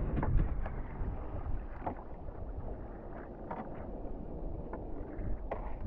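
Sea kayak paddle strokes: short splashes of the blades entering and leaving the water every second or so, at uneven intervals, over a steady rumble of wind on the microphone.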